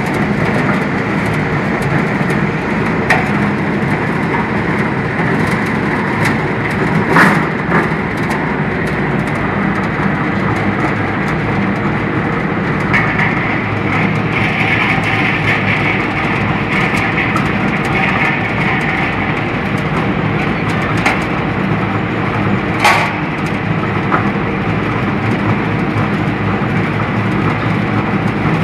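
Biomass straw briquette machine running steadily while extruding briquettes from its die: a dense, continuous mechanical noise with a low hum. Two sharp cracks stand out, about seven seconds in and again a little past twenty seconds.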